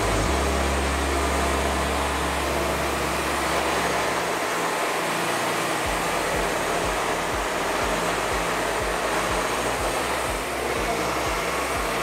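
Wood-Mizer LT40 Wide band sawmill cutting through a monkey pod log: a steady hiss of the band blade in the wood over the running machine. A low hum drops away about four seconds in, and from about six seconds regular low thumps, about two a second, join it.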